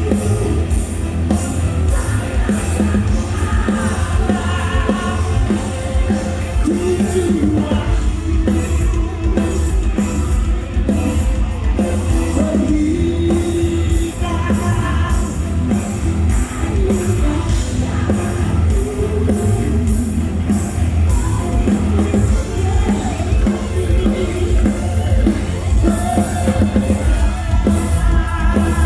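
Live rock band playing loudly in a large hall: a singer over a drum kit, with electric guitar.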